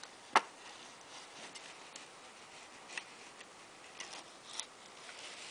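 Handling noise as an iPhone 3GS is picked up and held to the camera: one sharp knock about a third of a second in, then a few faint clicks and taps.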